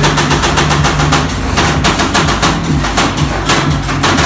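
Metal spatulas chopping and scraping rapidly on the steel cold plate of a rolled ice cream counter, a fast, unbroken clatter of sharp strikes.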